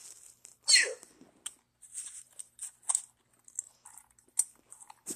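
Crunching and chewing noises, many short crackly bites, as the shark hand puppet eats red peppers. About a second in there is one loud whistle-like sweep falling quickly in pitch.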